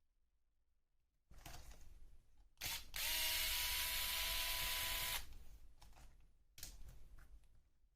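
Small electric screwdriver whirring for about two seconds while parts of a hobby RC car are unscrewed, with light clicks of plastic parts being handled before and after.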